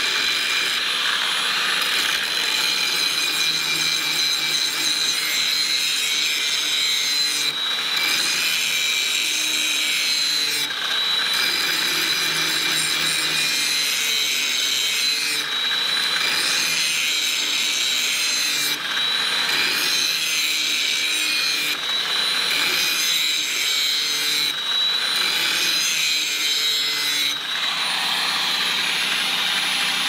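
Power grinder sharpening the steel blades of a skid steer brush mower, a steady high whine over a harsh grinding hiss that eases off briefly every few seconds as each pass ends. It is taking the burrs off edges battered by hitting rocks.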